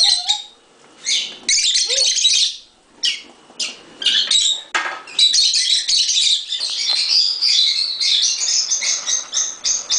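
Lovebirds chirping and squawking: shrill calls in short bursts at first, turning into near-continuous chattering from about halfway through.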